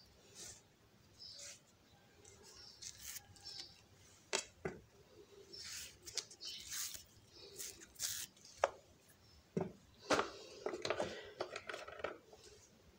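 Faint, scattered clicks and rustles of hands handling food on a plate: a banana being peeled, then a plastic mayonnaise pouch being picked up, with a few sharper ticks among them.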